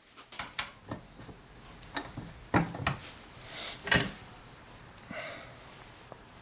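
Scattered light clicks and knocks of a wire metal rack being handled and worked in a bench vise to bend its cut ends into feet, with a couple of short rubbing sounds.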